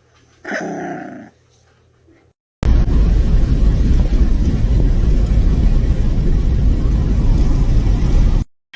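A dog vocalizes briefly about half a second in. After a cut comes about six seconds of loud, steady rumbling noise that stops suddenly.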